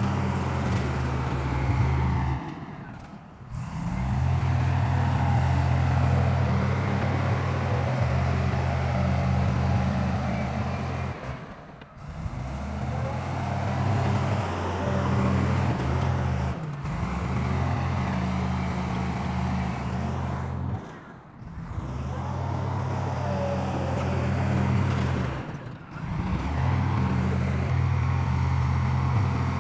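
Heavy diesel earthmoving machinery running steadily with a deep engine drone, dropping away briefly and coming back several times.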